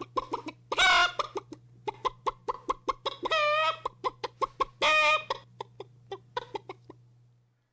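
Alice 2.4's built-in chicken sound effect playing through computer speakers: rapid hen clucking with three longer, drawn-out calls about one, three and a half, and five seconds in, fading out near the end.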